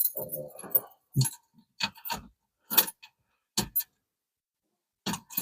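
A set of keys jangling briefly, then clicking and knocking about ten times as they are handled and put in place.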